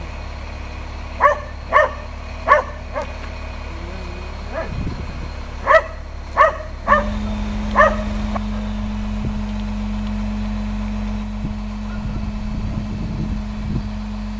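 Truck-mounted crane's engine running steadily, revving up to a higher, louder drone about seven seconds in. A dog barks about seven times in the first eight seconds.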